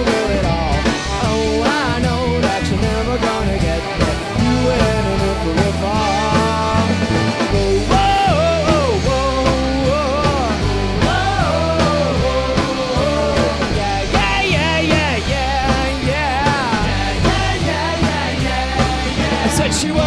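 A rock band playing live: distorted electric guitars, bass and drum kit with a steady beat, with trumpet and trombone lines over the top.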